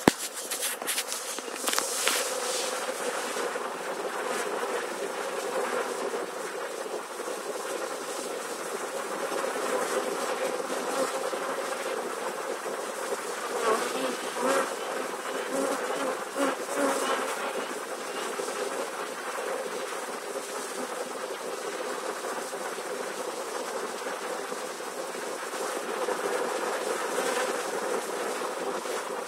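A swarm of honey bees buzzing at close range: a steady, dense hum of thousands of bees crawling over each other into their new hive. A few sharp crackles sound in the first couple of seconds.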